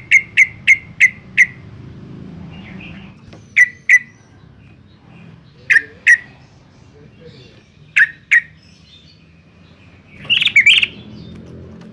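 Yellow-vented bulbul calling. A fast run of sharp repeated chirps at the start gives way to short paired notes about every two seconds, and a brief chattering burst comes near the end.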